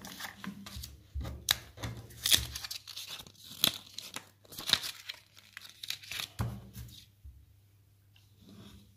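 Thin plastic packaging crinkling and tearing in the hands, a dense run of irregular sharp crackles that stops about seven seconds in.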